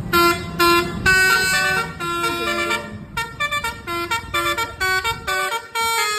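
Telolet multi-tone musical horn on a bus playing a tune: a few held notes over the first three seconds, then a quick run of short notes at changing pitches. A low rumble runs under the first three seconds.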